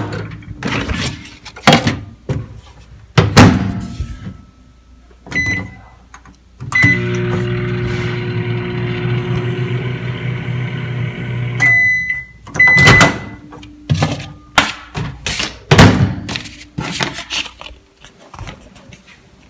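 Microwave oven in use: door and handling clunks, short keypad beeps, then the oven running with a steady hum for about five seconds. It stops with a longer beep and another short one, and more clunks follow.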